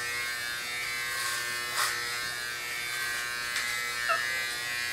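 Corded electric hair clippers giving a steady buzz as they shave hair close to the scalp, with a brief change in the sound a couple of times as the blades pass through the hair.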